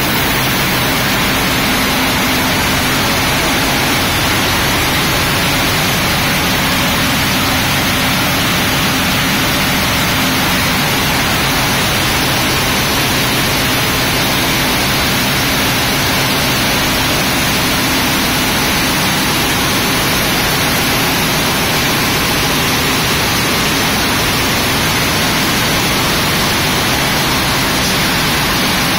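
Rieter E 65 cotton comber running at production speed: a steady, loud mechanical din with a faint low hum, unbroken throughout.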